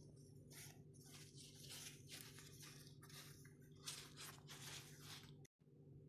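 Faint, repeated dry rustling and crinkling as fingers handle a thin cooked lavash flatbread, over a faint steady low hum.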